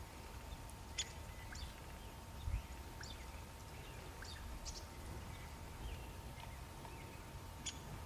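Scattered short, high bird chips and chirps at irregular intervals over a low wind rumble, with one dull low thump about two and a half seconds in.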